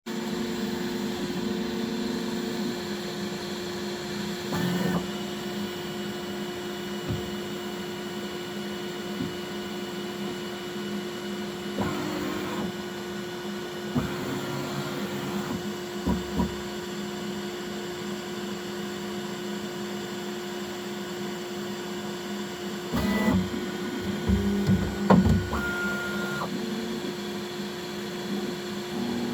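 Bambu Lab X1C 3D printer running its automatic bed levelling: a steady fan hum with stepper motors whining at changing pitches as the toolhead and bed move, and a few short knocks, several of them together near the end.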